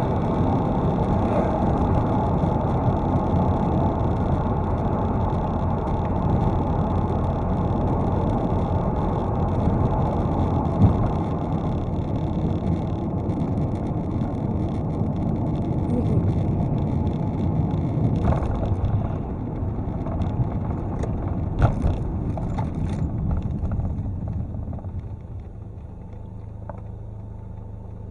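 Steady road and engine rumble heard inside a moving car's cabin, fading over the last few seconds as the car slows down. A few short sharp clicks in the second half.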